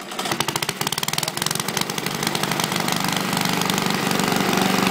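Suffolk Iron Foundry four-stroke petrol engine on a Qualcast Commodore cylinder mower catching abruptly and running with a rapid, even beat, getting steadily a little louder.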